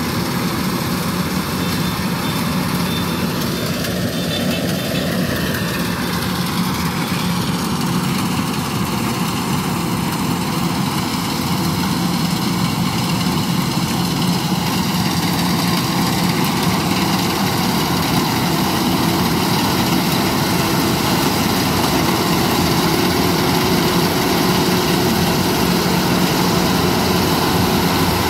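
Kubota DC-93 combine harvester running steadily as it harvests rice, with one tone that rises and falls a few seconds in.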